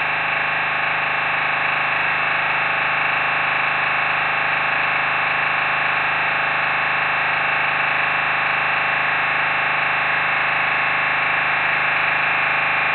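Dense, steady electronic drone of many layered tones, generated by a MaxMSP patch that sonifies the live video of the painting, so its tones follow the colours on the canvas.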